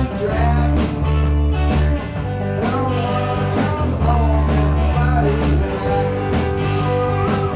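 A rock band playing live: electric guitars with drums and cymbals.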